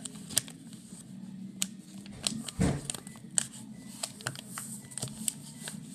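A sheet of paper being folded and creased by hand on a tabletop: scattered crinkles and sharp little clicks, with one dull knock about two and a half seconds in.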